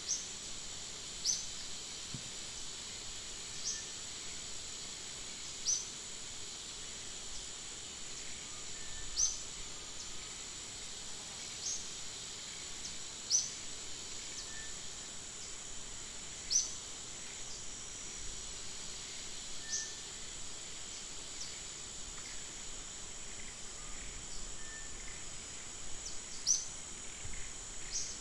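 Forest ambience: a steady high-pitched insect drone over a soft hiss, with short, sharp high chirps repeating irregularly every couple of seconds.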